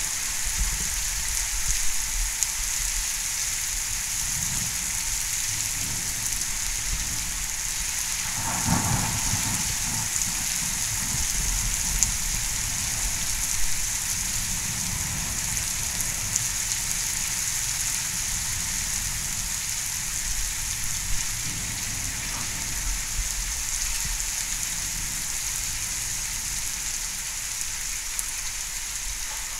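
Heavy thunderstorm rain falling in a steady hiss, with low thunder rumbling beneath it and a stronger rumble of thunder about nine seconds in.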